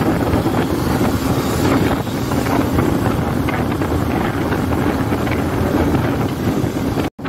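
Wind buffeting the microphone over the steady running of a Bajaj Avenger single-cylinder motorcycle engine and road noise while cruising at highway speed. The sound cuts out abruptly for a moment near the end.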